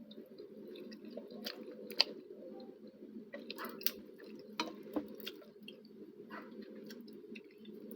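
Close-up eating sounds: chewing and biting with scattered short smacks and clicks, the sharpest about two seconds in, over a steady low hum.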